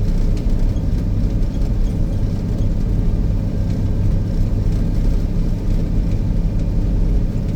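Snowcat's diesel engine running steadily while the machine pulls a grooming drag, heard from inside the cab as a low, even hum.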